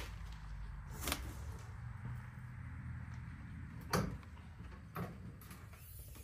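A few knocks and clunks as the hood of a Yanmar SA324 compact tractor is handled and tilted open, the loudest about four seconds in, over a low steady rumble.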